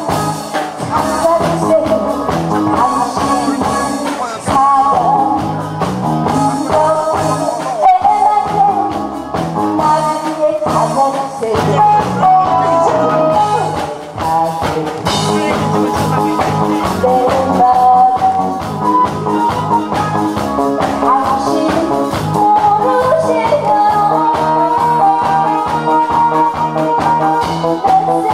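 A woman singing into a handheld microphone over an instrumental accompaniment, a continuous melody running without a break.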